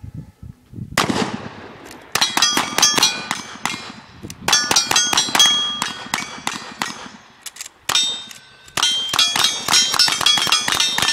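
Rapid strings of revolver and then lever-action rifle shots from two shooters firing at once. Almost every shot is answered by the bright ring of a struck steel target plate. The strings break off briefly twice as the shooters change guns.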